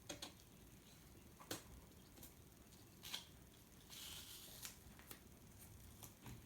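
Faint handling of a laptop screen panel: several light clicks spread out, and a short rustle about four seconds in as the plastic protective film is peeled off.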